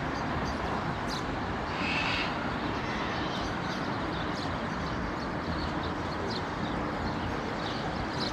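Steady outdoor background noise, a low rumble with hiss, with no clear single event standing out.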